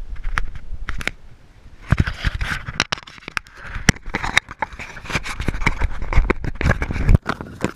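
Strong wind rumbling on the microphone, with a dense run of quick knocks and clicks from about two seconds in.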